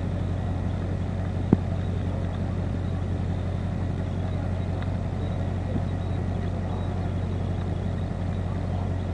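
Steady low drone of an idling vehicle engine, with no revving, and one sharp click about a second and a half in.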